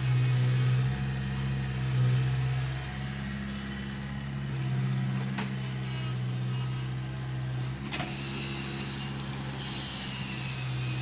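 Diesel engine of heavy construction machinery running steadily with a low, even hum, with two sharp clicks about five and eight seconds in.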